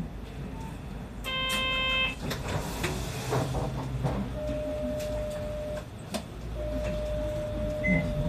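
Inside a Kanachu route bus: a low engine rumble with a short electronic buzzer about a second in, scattered clicks and knocks, then a long steady electronic beep broken once by a short gap through the second half.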